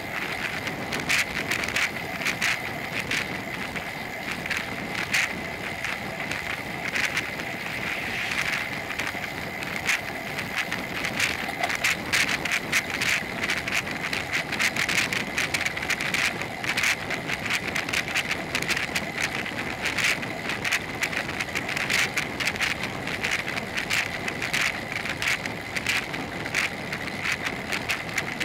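Bicycle riding along a paved road: a steady rush of wind and tyre noise with frequent irregular clicks and rattles.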